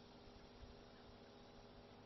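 Near silence: faint steady hiss of outdoor background, with a brief low bump about half a second in.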